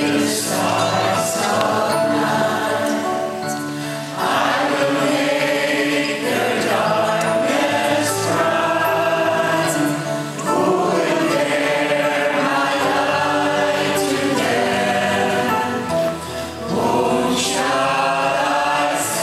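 Group of voices singing a worship song in long sustained phrases, with short breaks between phrases.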